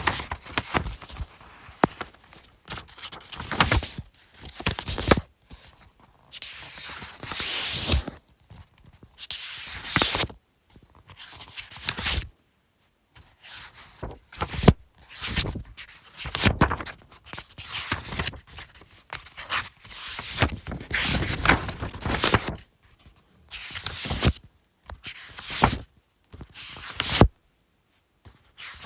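Paper pages being turned one after another, each turn a rustling swish of about a second or two with short pauses between.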